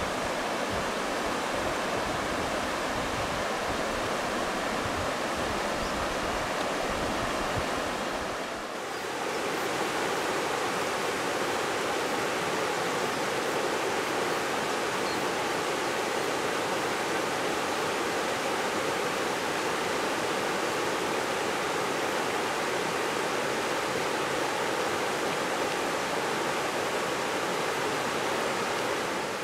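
River water rushing steadily over shallow rocky rapids. The sound dips briefly about nine seconds in, then carries on with less low rumble.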